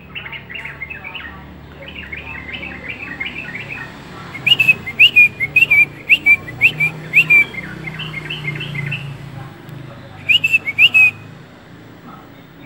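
Bird chirping: a run of quick, short chirps, with two bouts of louder, sharp rising chirps, one about four seconds in and one near the end.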